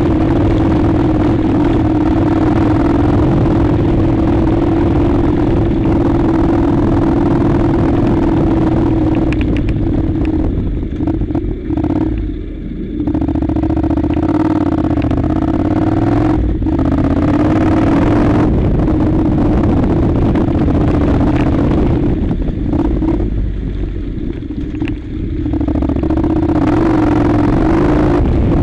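Honda NC700's 670 cc parallel-twin engine running as the bike rides a loose gravel track, with wind and road noise over the microphone and stones clattering under the tyres. The noise eases briefly twice, letting the engine's tone come through more clearly.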